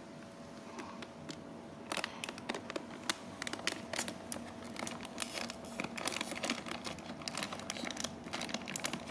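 Plastic snack packet crinkling as it is handled and opened by hand: an irregular run of sharp rustles and clicks, busier from about two seconds in.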